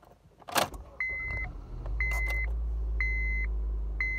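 A car engine starts with a short burst about half a second in and then runs at a low idle, while the dashboard warning chime beeps steadily about once a second.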